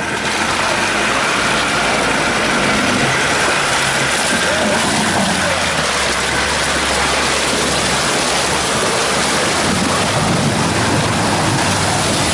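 Ford Ranger Wildtrak's engine running under load, with a dense steady rushing noise of the tyres churning through mud and water.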